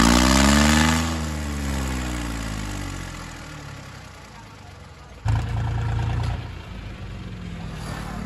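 Diesel tractor engines under load in a tug-of-war: revving high, then the revs fall away over a couple of seconds and the sound fades. About five seconds in, a louder, steady engine sound starts suddenly and eases off a second later.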